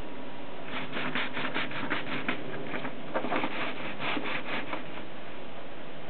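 Continental typewriter's platen being rolled by hand: a run of quick ratchet clicks with the paper rubbing as it feeds. The clicks come in two spells, starting about a second in and again past three seconds.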